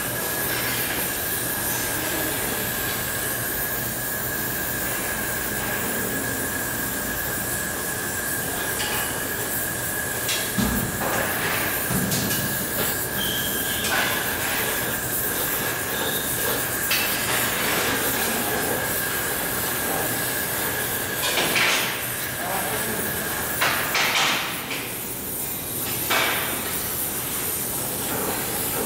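Oxy-acetylene gas welding torch burning steadily while brass filler is braze-welded onto a steel pipe joint: an even hissing roar with a thin steady high whistle that stops a few seconds before the end. A few sharp clicks sound over it.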